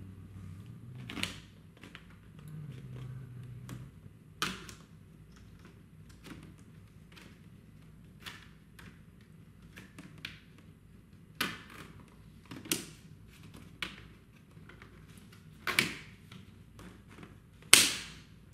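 Plastic cable raceway covers being pressed onto their bases by hand: about ten sharp plastic clicks and snaps, irregularly spaced, the loudest near the end.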